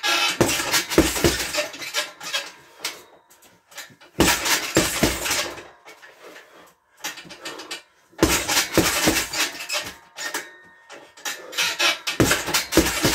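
Boxing gloves smacking a Prolast heavy bag in quick flurries of several punches each (the jab, lead hook, overhand right combination), four flurries roughly four seconds apart with quieter shuffling in between.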